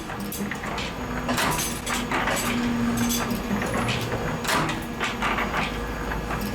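Irregular mechanical clatter of metal clicks and knocks from a spring-making machine at work.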